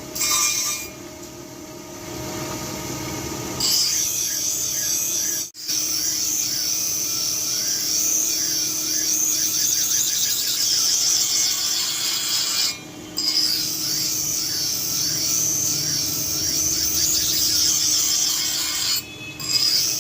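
Steel for a cobbler's tool being ground or filed, a steady abrasive rasping of metal that stops briefly twice.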